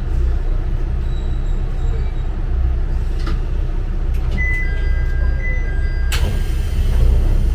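Hojo Railway diesel railcar running with a steady low rumble. About four and a half seconds in, a steady electronic beep sounds for under two seconds, then a sudden loud hiss of air.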